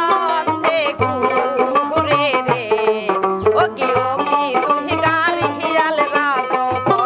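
Live Bhawaiya folk music: a dotara plucks the melody over a steady dhol drum beat, with a woman's singing voice.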